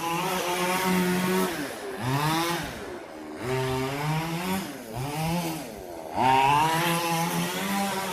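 Remote-controlled car's engine buzzing like a chainsaw, its pitch dropping and rising again twice in the middle as it slows and speeds up, otherwise running steadily.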